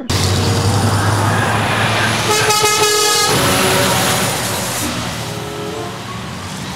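Scania tractor-trailer truck driving past on a road, engine and tyre noise loud, with a truck horn sounding once for about a second a little over two seconds in. The noise eases off over the last few seconds as the truck moves away.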